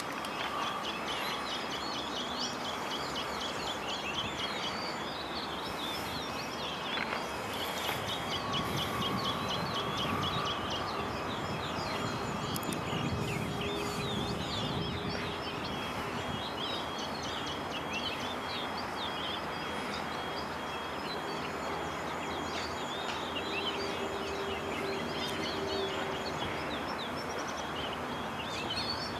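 Birds chirping over a steady outdoor background hum.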